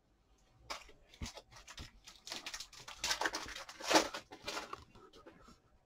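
Foil trading-card pack wrapper being crinkled and torn open by hand, a run of rustles and tears with the loudest rip about four seconds in.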